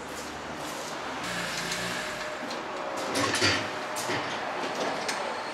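Metal clicks and scrapes of a brake pad being handled and pushed into the rear brake caliper bracket, loudest about three and a half seconds in, over steady workshop background noise.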